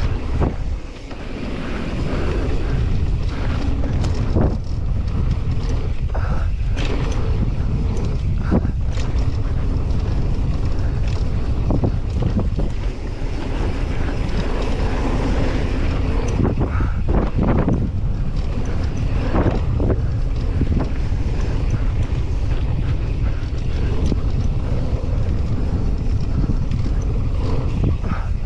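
Wind buffeting the microphone of a helmet-mounted camera while a downhill mountain bike rolls down a bike-park trail, with steady tyre noise and scattered knocks and rattles from the bike over bumps.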